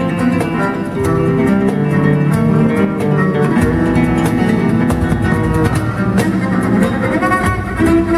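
Live instrumental music: a double bass played with a bow, holding long notes, over an acoustic guitar.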